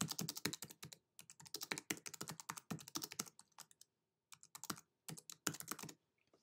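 Faint typing on a computer keyboard: quick runs of keystroke clicks broken by short pauses.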